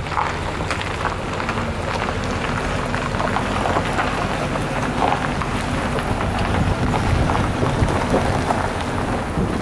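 Low steady drone of distant CSX diesel locomotives approaching, growing slightly louder, under wind buffeting and crackling on the microphone.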